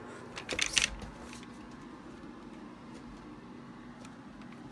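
A short burst of rustling and clicks from handling and moving about, about half a second in, then quiet room tone with a faint low hum.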